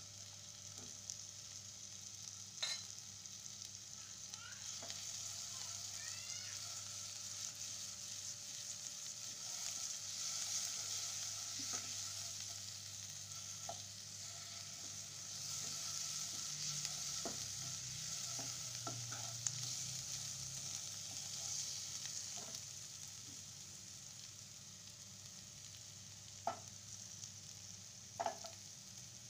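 Sliced shallots sizzling in hot oil in a non-stick pan while a wooden spatula stirs them; the sizzle grows louder through the middle and eases off near the end. A few sharp taps ring out as the spatula knocks against the pan, two of them close together near the end.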